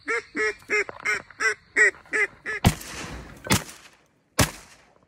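A run of eight loud, evenly spaced duck quacks, about three a second, followed by three shotgun shots a little under a second apart, each ringing out briefly.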